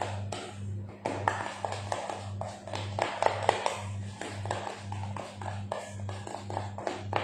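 Irregular taps, clicks and scrapes of a utensil working in a mixing bowl, over a low hum that pulses a little more than twice a second.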